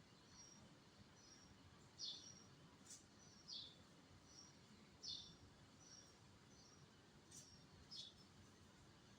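Faint, high bird chirps repeating about once a second, with a few louder chirps that slide downward, over a quiet background hiss.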